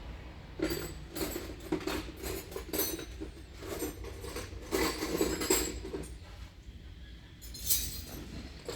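Irregular metallic clinking and clattering, in uneven bursts, the sound of metal tools or parts being handled.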